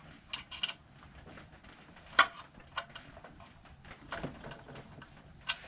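Scattered sharp clicks and light knocks of hand work on the motorcycle's front brake area, as the brake duct is loosened; about six in all, the loudest about two seconds in and another near the end.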